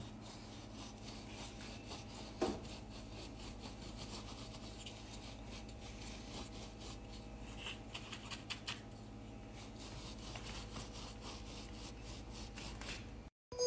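Light, irregular rubbing and scratching strokes over a steady low hum, as gold food colouring is worked onto a cake's set chocolate coating, with one sharper tap about two and a half seconds in.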